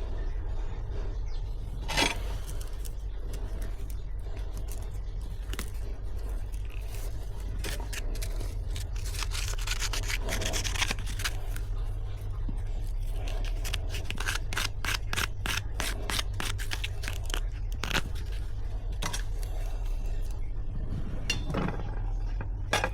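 Hand work on metal: repeated scraping and rubbing strokes with small clicks, thickest in the middle stretch, over a steady low rumble.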